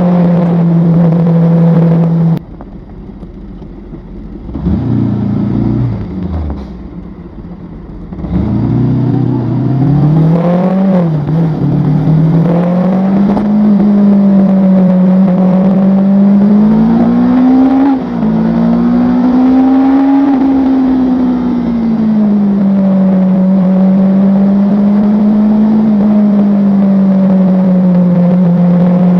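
A vehicle's engine heard from on board, running loud and steady. About two seconds in it suddenly drops back for several seconds, then picks up again with a rising pitch as it accelerates, and holds with slow rises and falls in pitch.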